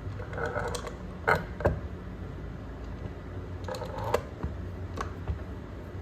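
Workshop handling noises during a woodworking build: two short creaking scrapes and a few sharp knocks, over a steady low hum.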